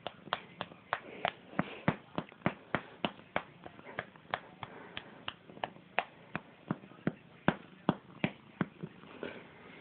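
Fingers flicking against a gray tabby cat's belly fur, a steady run of sharp taps at about three a second.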